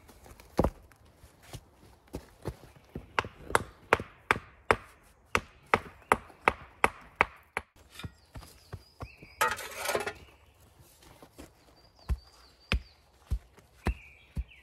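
Sandstone blocks and gravel being worked by hand and shovel: sharp stone-on-stone knocks and clacks, a few a second. A short rattling rush of shoveled gravel comes about two-thirds of the way through.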